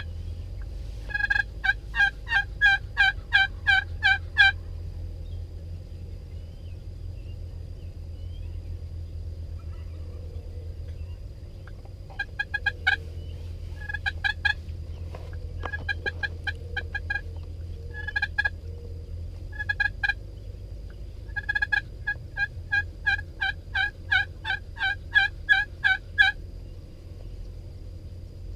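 Wild turkeys yelping: several runs of evenly spaced yelps, about three a second, with pauses between runs, over a steady low rumble.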